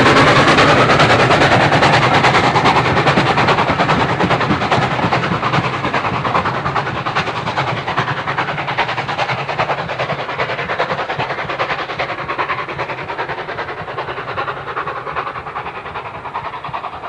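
SECR O1 steam locomotive and its train running past and away on the track, the beat of its exhaust and the rumble of the train fading steadily into the distance.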